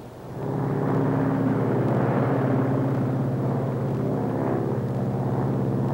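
Lockheed Super Constellation's piston engines and propellers droning steadily in flight, with one propeller feathered so the airliner runs on its other three engines. The drone sets in sharply about a third of a second in.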